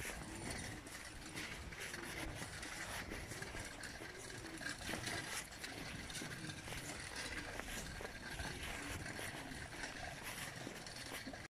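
Footsteps on paving and the rustle of a phone carried while walking, over a steady background hiss.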